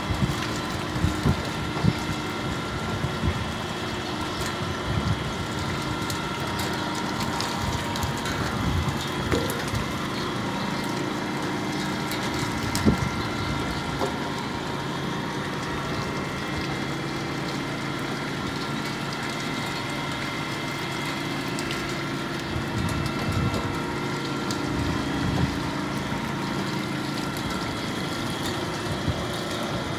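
Steady machine hum with water running through the steel fish-handling trough, and a few light knocks about a second, two seconds and thirteen seconds in.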